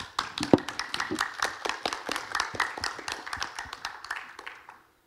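Audience applause, individual hand claps distinct, fading out near the end.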